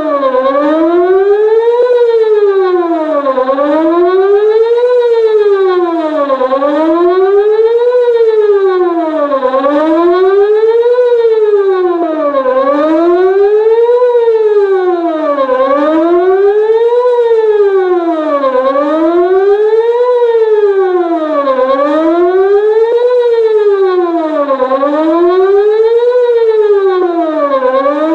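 Whelen WPS-2906 electronic outdoor warning siren sounding a loud wavering tone. The pitch sweeps smoothly up and down about every three seconds, over and over.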